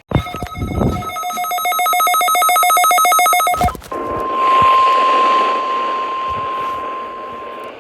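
A loud, rapidly pulsing electronic ringing tone lasts about three and a half seconds and cuts off with a thump. Then comes a single steady tone over radio static: the NOAA Weather Radio 1050 Hz warning alarm tone, sent for the weekly alarm test.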